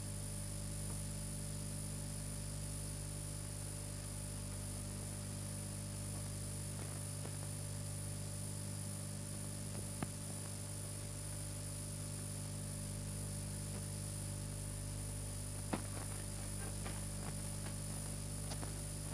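Steady electrical hum and hiss from an old 1969 film soundtrack during a silent stretch, with a few faint clicks, the loudest about halfway through and another a few seconds before the end.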